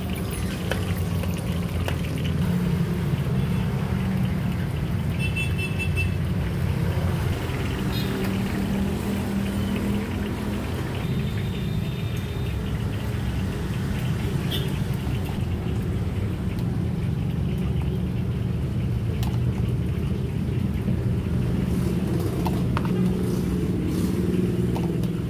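A steady low mechanical rumble with a faint hum, broken by a few light clicks and knocks.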